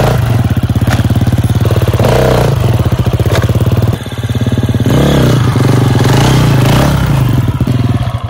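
KTM enduro motorcycle engine running loudly near idle and blipped with the throttle about three times, each a short rev, to lift the front wheel with the rider's foot on the ground.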